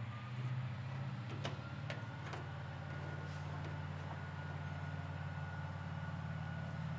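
A steady low hum with a faint thin high whine over it, and a few soft clicks in the first couple of seconds as a plastic spreader presses body filler into the fender hole.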